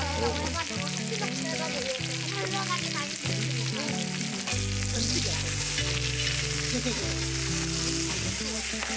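Food frying in a hot pan, a steady sizzling hiss that grows louder about five seconds in, with a pop song playing over it.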